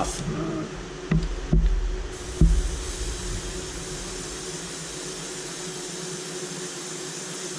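Airbrush spraying paint: a steady hiss of air and paint mist that starts about two seconds in and keeps going. A few dull handling thumps come just before it.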